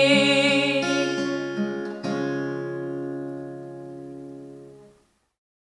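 Instrumental close of a sung church refrain: held chords with a new chord struck about two seconds in, ringing out and fading away, then cutting to silence near the end.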